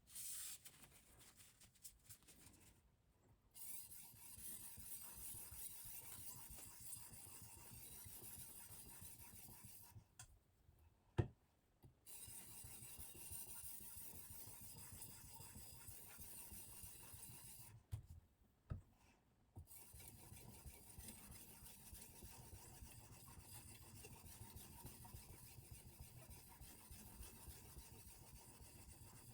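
Silicon carbide oil stone rasping steadily along a Damascus steel knife edge in long runs of back-and-forth strokes. The strokes pause twice, with a sharp click about 11 seconds in and two lighter knocks near 18 seconds.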